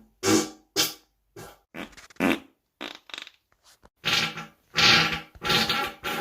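A quick string of short human farts, one every half second or so, then longer, louder ones from about four seconds in.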